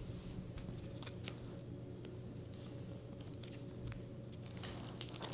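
Handlebar tape being stretched and wrapped around a bicycle handlebar: scattered light rustles and clicks, with a sharp tick about a second in and a cluster of clicks near the end, over a steady low hum.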